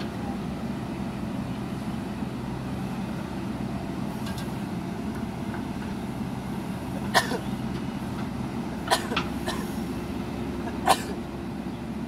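JCB 3DX backhoe loader's diesel engine running steadily while it digs soil and loads a dump truck, with a few short sharp sounds between about seven and eleven seconds in.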